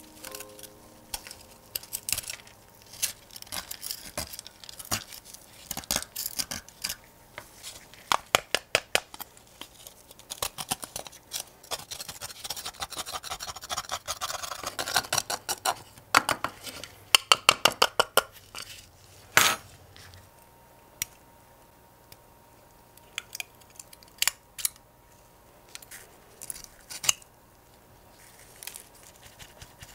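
Bent-tip metal tweezers scraping and picking caked dried dirt off a rusty metal model truck part, a run of sharp scratches and clicks. The strokes come thick and fast through the middle and thin out to scattered clicks in the last third.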